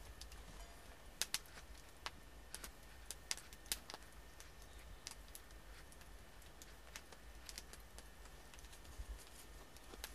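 Faint, irregular sharp clicks and taps, a dozen or so spread over several seconds, from a horse's hoof and shoe being handled during shoeing work.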